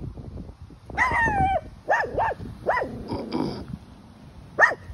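Jack Russell terrier barking: a longer, falling yelp-like bark about a second in, then three short barks in quick succession and one more near the end.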